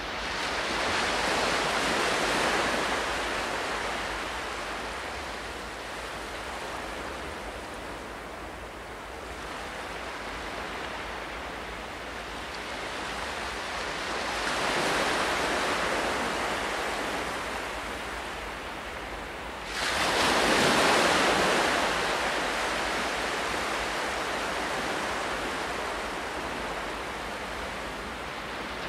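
Ocean surf: waves breaking and washing out, with three swells, the sharpest about twenty seconds in.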